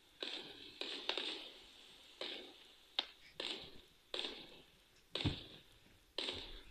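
Firework shells going off in quick succession, about one or two a second. Each is a sharp bang that trails off, and one a little past five seconds has a deeper thud. The sound is thin, as played back through a phone's speaker.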